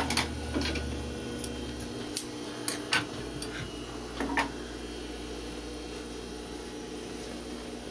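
Industrial sewing machine's motor humming at rest with the needle stopped, with a few sharp light clicks and rustles in the first half as the fabric is drawn off the machine and handled.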